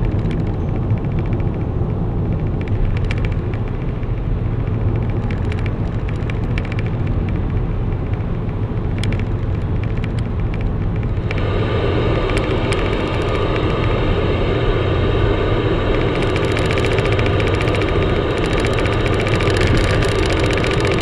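Road and engine noise inside a car cabin at motorway speed. About halfway through, a steady hiss of CB radio static comes in over it as the radio's channel knob is turned.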